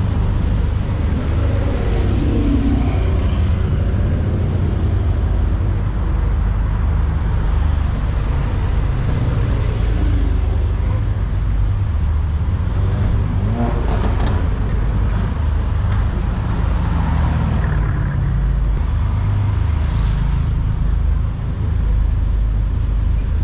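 Mercedes-AMG cars' engines running together, a steady low exhaust rumble with a few brief rises in engine note.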